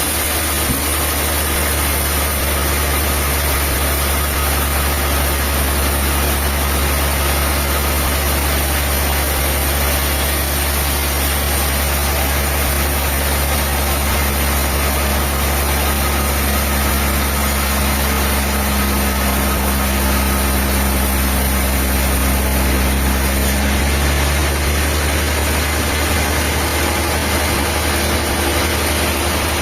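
Diesel engine running steadily with a deep, even hum; its tone shifts slightly about 23 seconds in.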